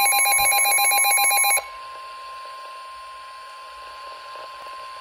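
Midland weather radio's fast warbling alert alarm sounding over a steady single tone, the NOAA Weather Radio warning tone that signals a tornado warning. The warbling alarm cuts off about a second and a half in, and the steady tone carries on more quietly.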